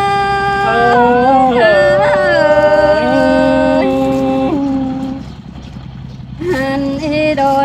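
A voice singing a Tai folk love song in long, held notes that slide between pitches; the singing fades away about five seconds in and comes back a second or so later, over a steady low hum.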